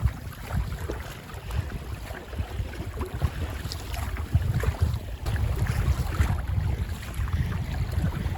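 Wind buffeting the microphone aboard a sailing boat on the water, a gusty low rumble, with scattered short splashes and ticks over it.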